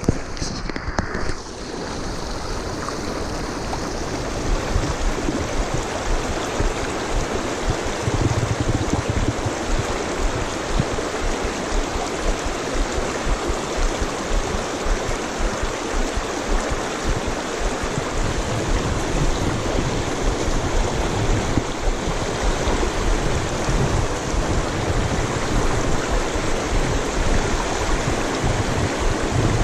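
Fast, shallow water of the Gallatin River riffle rushing steadily over a rocky bed.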